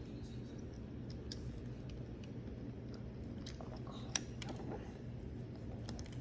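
Small plastic clicks and scraping from handling an Xbox One controller's trigger parts while fitting a spring and pin, with one sharper click about four seconds in, over a steady low hum.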